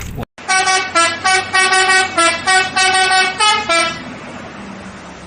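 Telolet bus horn playing a quick musical tune of short toots on changing pitches, about five notes a second, stopping about four seconds in; a softer steady hum follows.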